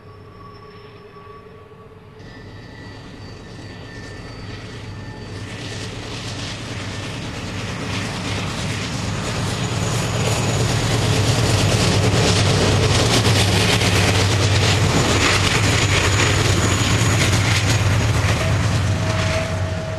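GE diesel-electric locomotives lead an intermodal freight train working upgrade, their engines' low drone growing steadily louder as the lead unit draws close and passes. The rumble and rush of the trailer-laden flatcars rolling by follows, loudest in the second half.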